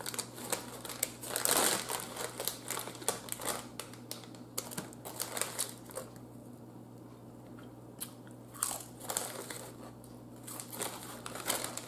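Crinkling of a Lay's Classic potato chip bag as a hand rummages in it, with crisp crunching of potato chips being bitten and chewed. The crackling is densest in the first few seconds, eases off in the middle and picks up again near the end.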